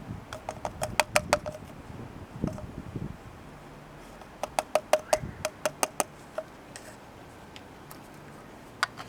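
Two quick runs of sharp hollow taps, each of about ten taps with a short ringing note, the second run starting about three seconds after the first ends, then a couple of single taps near the end.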